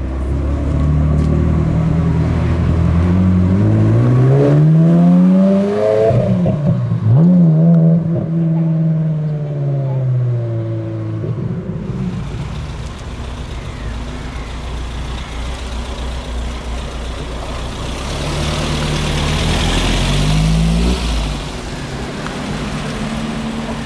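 Car engine accelerating hard, its note rising for several seconds, breaking at a gear change, then falling away as the car passes. A lower steady engine rumble follows, with a brief blip of revs near the end.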